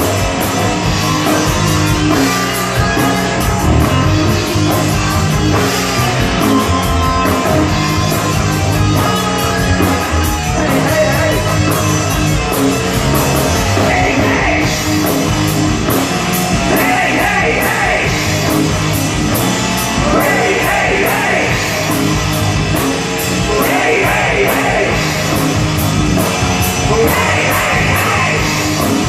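A rock band playing live: electric guitar and drums with steady cymbal strokes, with a voice singing in phrases through the second half.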